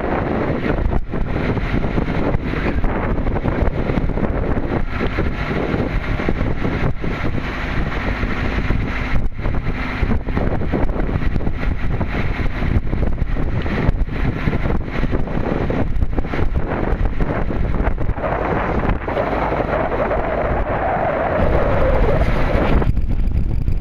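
Wind buffeting the microphone aboard a sailing yacht under way, a loud, steady rushing rumble broken by frequent gusty thumps.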